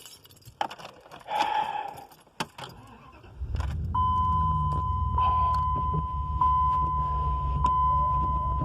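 Keys jangling and a few clicks. About three seconds in, a car engine starts and settles into a steady idle. From about four seconds in, a steady high electronic warning tone sounds, with a faint tick about once a second.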